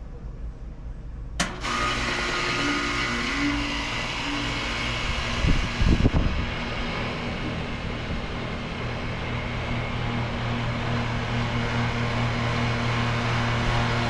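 A 2003 Bryant Puron (533G) air-conditioner condensing unit starting up: a sharp click about a second and a half in, then its Bristol H89B compressor hum and condenser fan come on together and run steadily. A brief low rumble just before the middle is the loudest moment.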